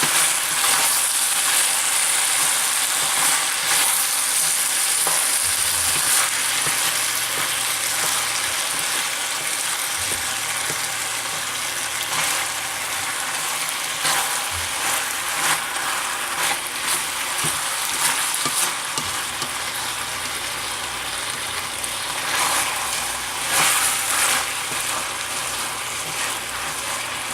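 Chicken, green beans and ramen noodles sizzling in sauce in a hot wok while being stirred, a steady frying hiss broken by occasional clatters of the utensil against the pan.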